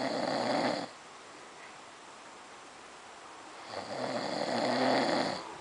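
A man snoring in his sleep. One snore trails off within the first second, and a second snore, about a second and a half long, comes near the end.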